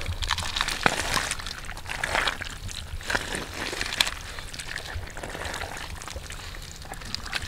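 A hand digging and scooping through wet mud in shallow muddy water: irregular squelches, slaps and small splashes, with a few sharper wet clicks.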